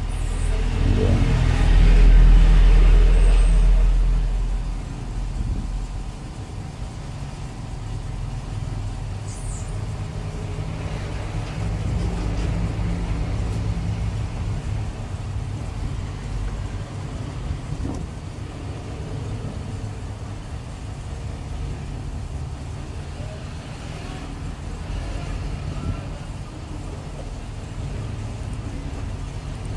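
Low, steady traffic rumble, with a louder vehicle passing about two seconds in.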